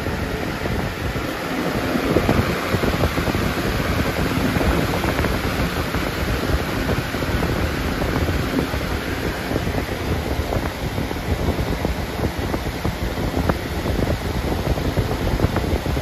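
A 2001 Lasko 3733 box fan running, a steady, loud rush of air whose blast buffets the microphone with a low rumble. The fan runs smoothly, like new.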